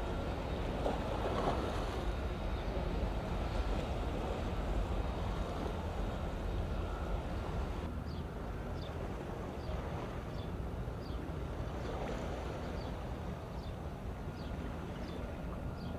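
Outdoor wind buffeting the microphone, heard as a steady low rumble and hiss. From about halfway through, faint short high chirps repeat every half second or so.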